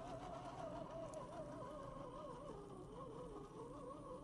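Boomracing Defender 110 RC crawler's electric motor and gearbox whining faintly as it climbs, the pitch wavering up and down with the throttle.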